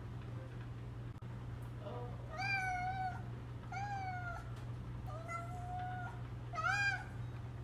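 A domestic cat meowing four times, each meow a drawn-out, steady-pitched call, the last one short and loud.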